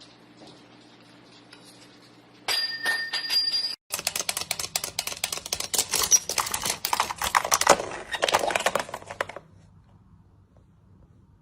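Cartoon sound effects: a brief clicking with a ringing, bell-like tone, then about five seconds of fast, dense clattering clicks like rapid typing that stop abruptly.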